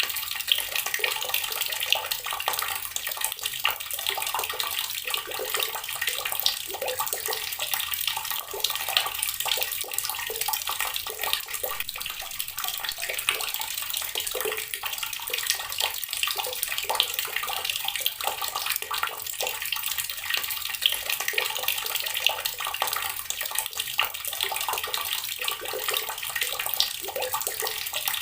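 Water running steadily from a tap, splashing continuously with no change.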